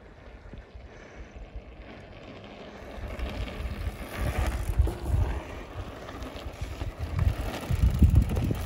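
Wind buffeting the microphone in gusts, with mountain bike tyres rolling over a dirt trail as riders pass close by. It grows louder about three seconds in, with the strongest gusts near the end.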